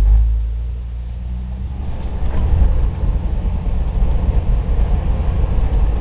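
Jeep TJ's engine running at low speed as it crawls over rock, a steady low rumble. A louder, rougher noise joins it about two seconds in.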